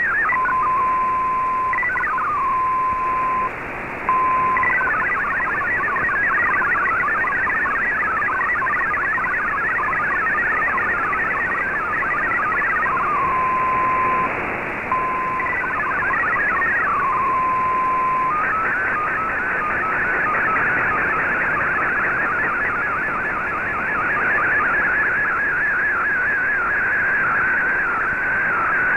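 Shortwave MFSK64 digital-mode broadcast received on an Icom IC-R8600, heard over steady hiss. A picture transmission ends, then a steady tone with two short breaks and downward-gliding tones, a long stretch of rapidly hopping data tones carrying text, and another steady tone with glides. About 18 seconds in, the continuously wavering tone of the next image transmission begins.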